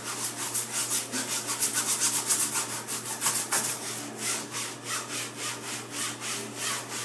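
Scrub brush scrubbing mold off a shower curtain in quick back-and-forth strokes, about four a second, growing softer in the second half.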